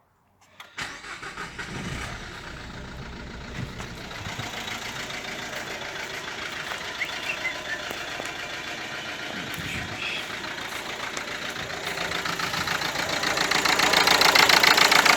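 Renault Mégane II diesel engine running at idle with a fast, even clatter. It comes in suddenly about a second in and grows louder over the last few seconds. The engine limps a little, running slightly unevenly, just after being brought back to life.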